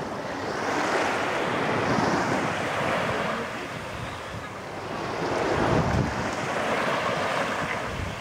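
Black Sea surf washing onto a beach, swelling louder as waves break about a second in and again around six seconds, with wind buffeting the microphone.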